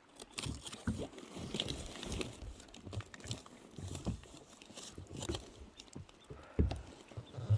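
Water slapping and knocking against the hull of a small boat in irregular low thumps, with a few sharper knocks.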